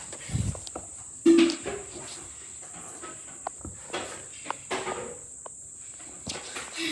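Scattered clicks and knocks of a plastic robot vacuum being handled, one louder knock about a second in, over a steady high-pitched whine.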